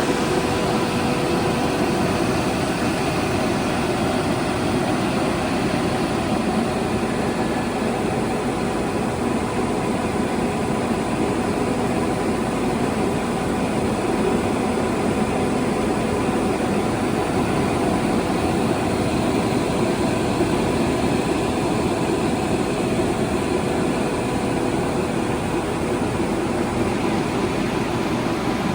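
A 2009 Polyglass LV1500 vertical glass washing machine running steadily: an even machine hum and hiss with faint steady tones.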